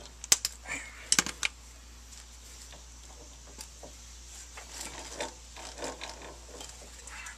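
A few sharp metallic clicks and clinks in the first second and a half as the impact wrench's socket and extension are pulled off a front-suspension fastener, then only faint scattered knocks over a low steady hum.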